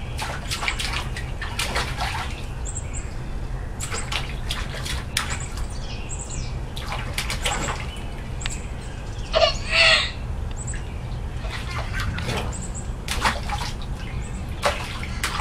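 Water splashing irregularly as a toddler slaps and stirs it with her hands in a small inflatable kiddie pool. A brief high-pitched cry comes about ten seconds in, and birds chirp faintly in the background.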